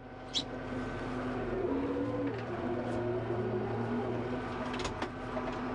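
Kubota M5-091 tractor's four-cylinder turbo diesel running under way, heard from inside the cab, its engine speed shifting a little up and down. Two brief clicks come through, one about half a second in and one near the end.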